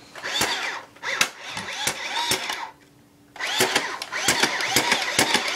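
A small battery-powered toy mechanism clicking and whirring, with a rising-and-falling whir. It runs in bursts and stops briefly about halfway through, then starts again with about four clicks a second.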